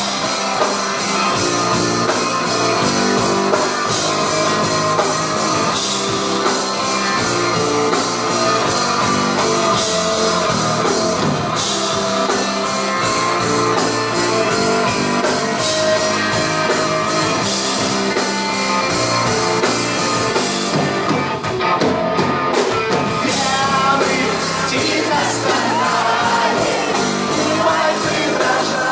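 Live rock band playing: electric guitars, bass and drum kit, with a singer's voice over them.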